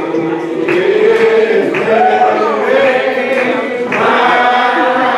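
Several voices singing a slow Primitive Baptist hymn a cappella, holding long notes that glide from pitch to pitch.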